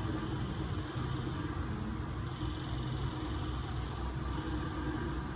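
Steady low mechanical rumble with a faint hum, and a few faint, sharp little clicks over it.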